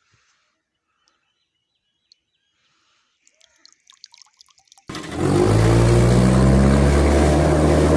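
Faint scattered bird chirps, then about five seconds in a vehicle engine starts abruptly and loud, its pitch rising briefly before it settles into steady running.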